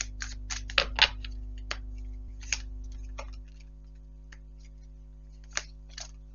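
Tarot cards being handled and laid on a table: a run of sharp clicks and taps, the loudest pair about a second in. A steady low hum runs underneath and drops away about three and a half seconds in.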